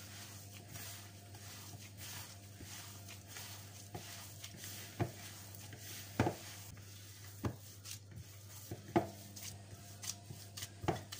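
A gloved hand kneading a moist biscuit-crumb and margarine mixture in a bowl: soft squishing with scattered light knocks against the bowl, over a low steady hum.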